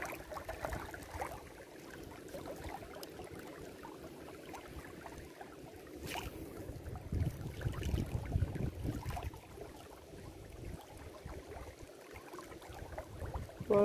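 Faint, steady rush of a flooded, muddy river current. There is a single sharp click about six seconds in and a low rumble from about seven to ten seconds.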